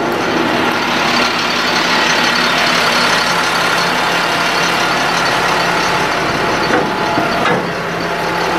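Ford F-750 medium-duty diesel truck engine running steadily with the PTO-driven hydraulic pump engaged while the outriggers are lowered, with two brief knocks about seven seconds in.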